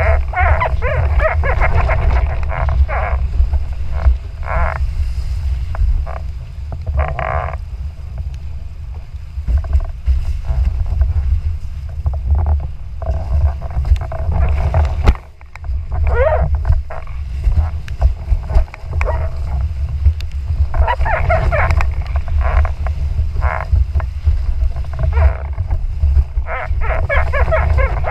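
Wind buffeting an action-camera microphone on a windfoil rig at speed. There are irregular bursts of rushing, splashing water from the board and foil cutting through the chop. The wind rumble drops out briefly about halfway through.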